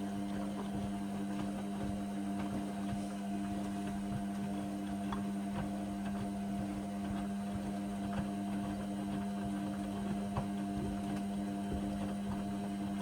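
Indesit washing machine running in the main wash of a cotton cycle: a steady electrical hum with a few light ticks from the machine.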